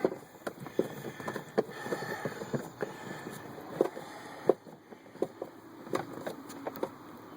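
Scattered sharp clicks and light knocks of hand tools, screws and plastic parts being handled while working under a truck's dashboard.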